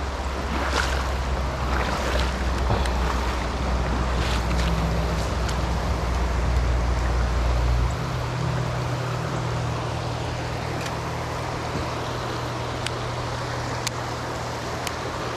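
Shallow, fast river water rushing over rocks, a steady wash of noise with a few small clicks. A low rumble runs underneath and shifts in pitch about halfway through.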